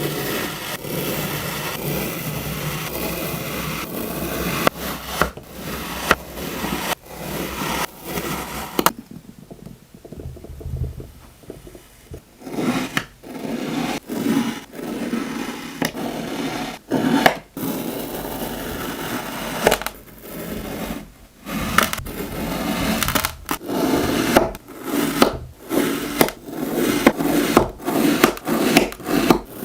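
Kinetic sand being cut and crumbled: gritty scraping and crackling broken by many sharp clicks, with a quieter stretch of about three seconds a third of the way in.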